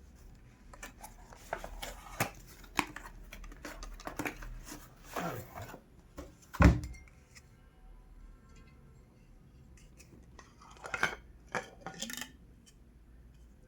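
Glass water bottles and their packaging being handled: irregular clicks, knocks and rustling, with one heavy thud about six and a half seconds in, followed by a brief faint ringing, and a few sharper clicks near the end.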